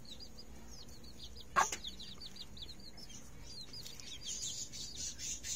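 Young chicks peeping steadily, a rapid run of short high chirps several times a second, with one louder, sharper call about one and a half seconds in.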